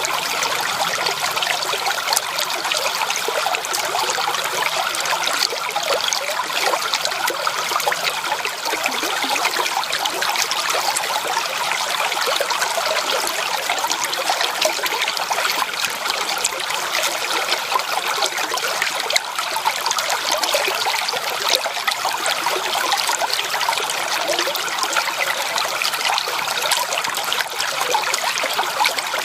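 Shallow creek water trickling and babbling over stones, a steady bubbling with no pauses.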